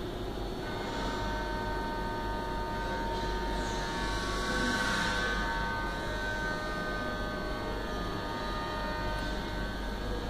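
Steady electrical mains hum with room noise, joined by faint steady whining tones that come in about a second in and swell toward the middle.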